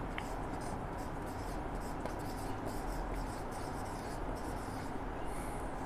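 Marker pen writing on a whiteboard: a run of short strokes as a word is written out.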